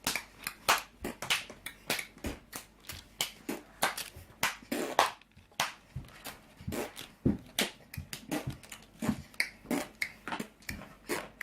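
Spoon scraping and knocking against a mixing bowl as brownie batter is scraped out into a baking tin: irregular clicks and knocks, several a second.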